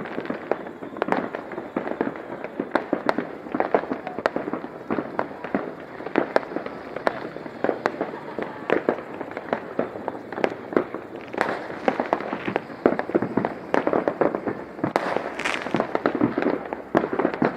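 Fireworks and firecrackers going off in rapid, irregular succession: dozens of sharp bangs and cracks, one after another, with no pause.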